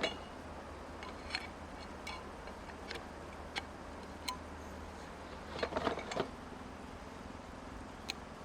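Steady hiss of rain and river water, with scattered light clicks and knocks and a small cluster of them a little under six seconds in. A low hum underneath stops at about the same point.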